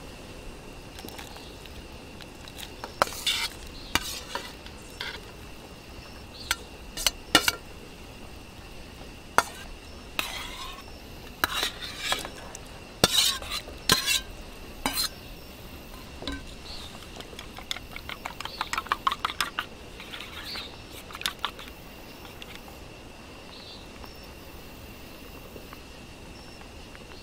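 Cooking utensils clinking and knocking against pots and dishes in scattered strikes, with a quick run of rapid taps about two thirds of the way through, like stirring or beating in a bowl. A faint steady high tone sounds underneath.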